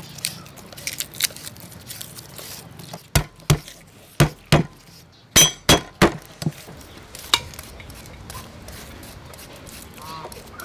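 Cleaver knocking against a thick wooden chopping board as garlic cloves are crushed and cut: about nine sharp knocks, several in quick pairs, between three and seven seconds in.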